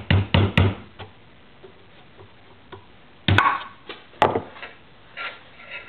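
Hammer tapping on the end of a flathead screwdriver pushed through a street luge wheel's hub, driving out the bearing. A quick run of light taps comes at the start, then two heavier knocks about three and four seconds in, followed by a few fainter ones.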